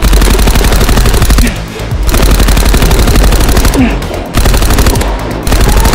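Rapid full-auto fire from a Nerf Rival Perses blaster: a fast, continuous stream of shots in several long bursts with brief breaks between them, over background music.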